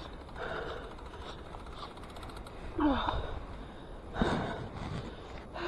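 A cyclist breathing hard after a climb: a few heavy exhales and gasps, one about three seconds in carrying a short falling voiced groan.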